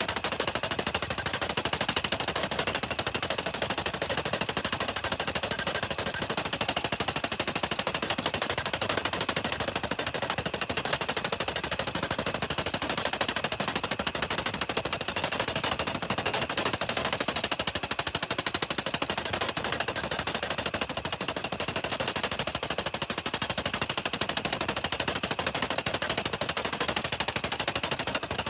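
Harbor Freight jackhammer in a custom pounding rig, hammering rapidly and without pause on a black ash log that is fed beneath it. The pounding crushes the earlywood between the growth rings so the wood can be peeled into basket splint.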